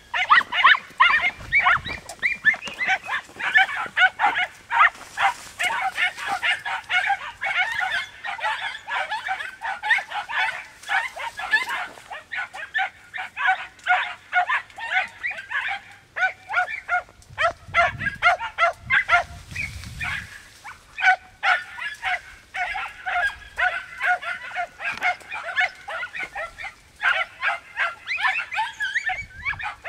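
Pack of Podenco de Cuevas hounds giving tongue in rapid, overlapping high yelps while trailing a rabbit through cover, a near-continuous chorus that thins briefly around the middle.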